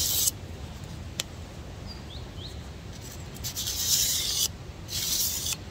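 Knife blade being drawn across 800-grit sandpaper. There is a short scraping stroke right at the start, then a pause of about three seconds, then two more strokes close together near the end.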